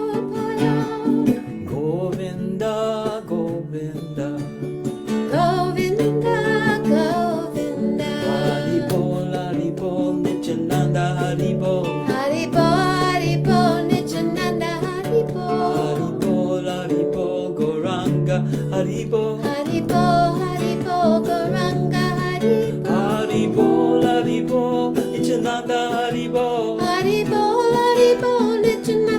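Kirtan devotional music: sustained low chords and plucked strings under a melody line that wavers in pitch.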